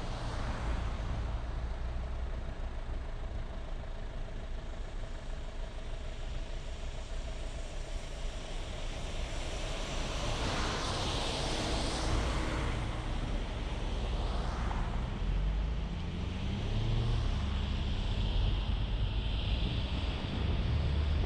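Vehicle driving through city traffic: steady low engine and road-tyre noise, with other vehicles swishing past about ten and fourteen seconds in, and the engine note rising as it speeds up near the end.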